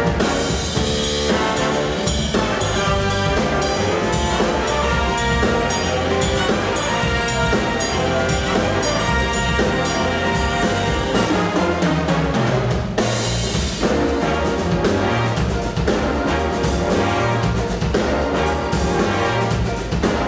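A jazz-funk band with a brass section and drum kit playing an up-tempo tune, horns and drums together.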